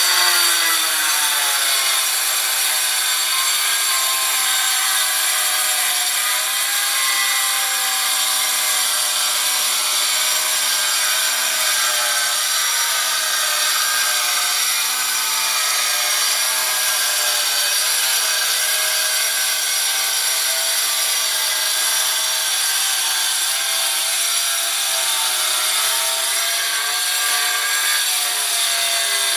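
Handheld electric angle grinder cutting ceramic tile, running without a break, its motor pitch wavering up and down as the blade bites.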